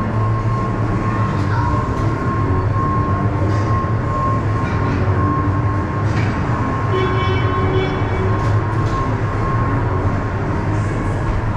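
Steady machinery drone in an ice arena, a constant low hum with a thin steady whine above it.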